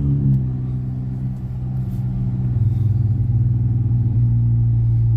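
Car exhaust fitted with MagnaFlow Magnapack mufflers, running with a low steady note while driving. The engine note steps in pitch just after the start, then holds steady.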